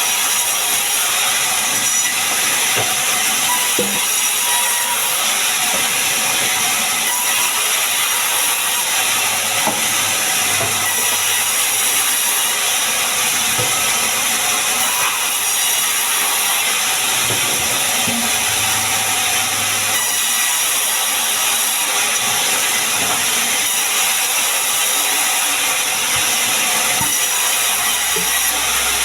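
Sawmill saw running steadily through sengon wood, a continuous loud hiss with a few faint knocks.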